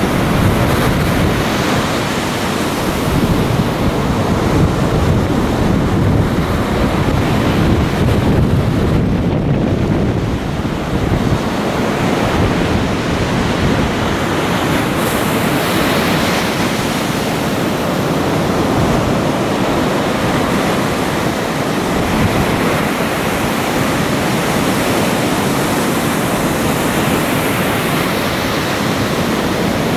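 Surf of the Sea of Okhotsk breaking and washing on the beach, a steady loud wash of noise that swells and eases with the waves, with wind blowing on the microphone.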